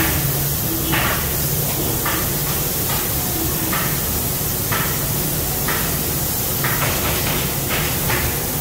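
Thermoforming machine running through a forming cycle, the clamped plastic sheet being drawn into shape: a steady low hum with short hisses about once a second.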